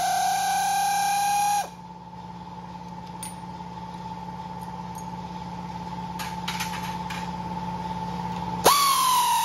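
Air compressor motor running with a steady whine, which shuts off abruptly about one and a half seconds in and kicks back on near the end, its pitch falling right after the restart. A few faint clicks sound in the quieter stretch between.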